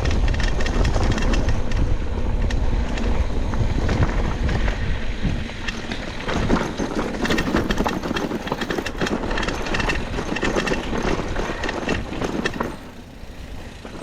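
Downhill mountain bike riding over a rough trail: tyres rumbling and the bike rattling with a dense run of clicks. It goes quieter suddenly near the end.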